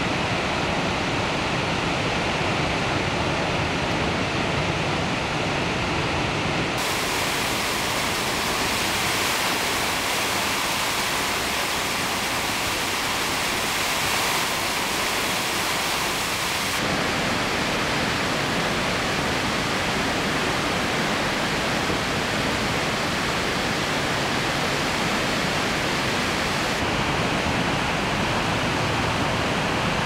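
Water rushing over Niagara's Horseshoe Falls, a loud steady wash of noise. Its character changes abruptly about every ten seconds. It is brighter and hissier from about seven to seventeen seconds in, when heard from a tunnel opening behind the falling curtain of water.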